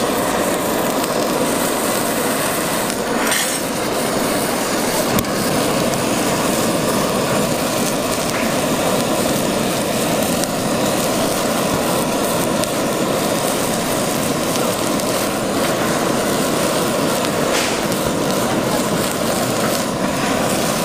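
Handheld butane kitchen torch burning with a steady hiss as its flame sears beef nigiri on a metal tray. A couple of brief clicks come a few seconds in.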